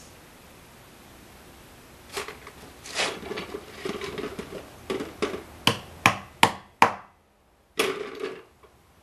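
Wheel weights and tools being handled at a bubble wheel balancer: clatter and knocks, then four quick sharp taps, each louder than the last, and one more knock near the end.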